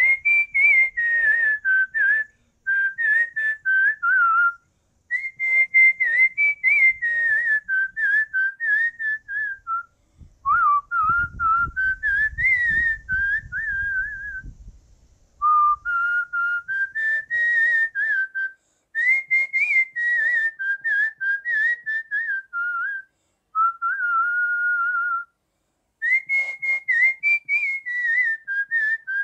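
A person whistling a melody as background music, in phrases of a few seconds separated by short pauses.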